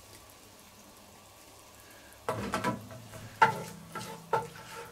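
Oil and tomato paste sizzling faintly in a cast-iron Dutch oven, hot mainly in the middle. About two seconds in, a wooden spoon starts stirring, scraping the bottom and knocking against the pot a few times with a short metallic ring.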